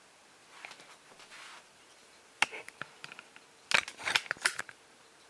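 A soft rustle, then a sharp click and, about a second later, a quick cluster of clicks and knocks, as of something small and hard being handled.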